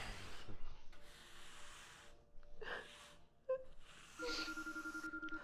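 A hand brush sweeping scattered cheese puffs off a wooden floor, then a woman's shaky, whimpering breath. About four seconds in, a phone starts ringing with a steady pulsing tone.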